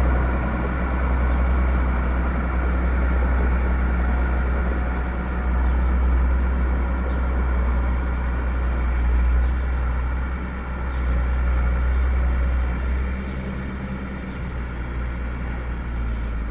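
Heavy farm-machinery engine running steadily with a deep low rumble, easing off slightly a couple of times.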